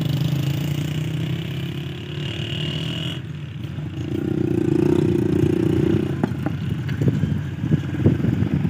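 Diesel locomotive engine running as the train approaches, a steady low drone. A scatter of sharp ticks and knocks joins it from about six seconds in.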